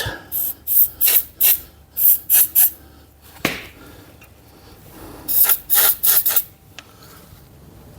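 Aerosol can of Inox MX3 penetrating lubricant sprayed in many short hissing bursts onto engine bolts to free them, in two runs with a lull between, and a single knock about three and a half seconds in.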